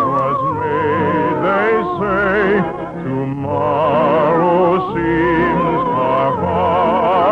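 Orchestral music from a 1950s radio operetta broadcast: a lyrical passage with a wavering vibrato melody over held low notes, dipping briefly about three seconds in.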